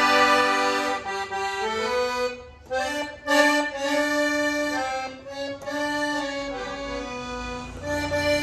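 Accordion (sanfona) playing a melody over held bass notes, the tune moving from note to note with a short break about two and a half seconds in.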